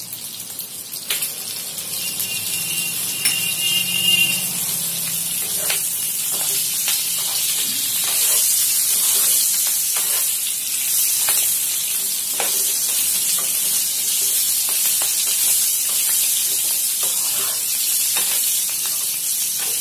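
Stuffed green chillies frying in hot oil in a non-stick pan: a steady sizzle that builds over the first several seconds, with a spatula knocking and scraping against the pan as the chillies are stirred and turned.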